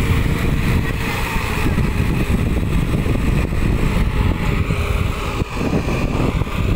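Diesel engine of a John Deere four-wheel-drive tractor running steadily as it works a flooded field, heard under a heavy low rumble of wind on the microphone.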